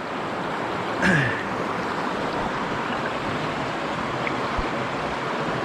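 Steady rush of water at the edge of a bay, small waves washing among rocks, with a brief grunt-like voice sound about a second in.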